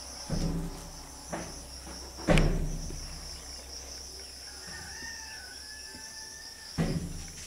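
Insects chirring steadily in a high, even drone, with a few dull knocks over it, the loudest about two seconds in.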